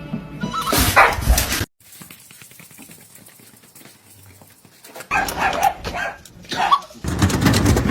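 A dog barking in short bursts.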